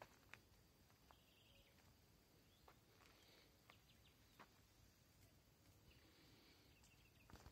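Near silence: faint outdoor ambience with a few soft, scattered clicks and brief faint high chirps.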